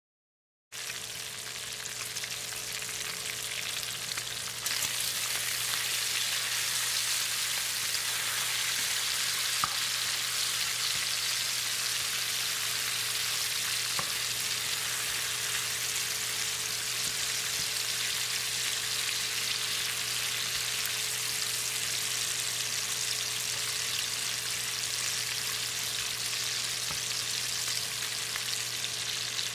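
Chopped bacon frying in a pan: a steady, hissing sizzle that starts suddenly about a second in and grows a little louder a few seconds later. A wooden spatula stirs the bacon.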